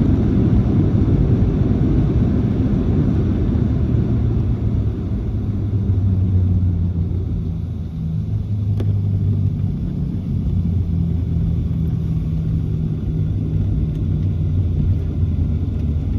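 Cabin noise of a Boeing 737-700 on the ground after landing: a loud rumble of the CFM56 engines and the rolling gear that eases off about halfway through as the jet slows, then settles into a steady engine hum.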